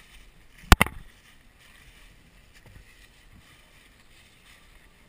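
Two sharp cracks in quick succession about a second in, then faint rustling.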